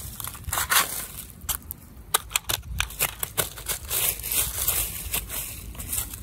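Dry leaves and litter crunching and rustling as a sandaled foot kicks and sweeps them off a metal street drain grate, in a rapid, uneven run of crackles.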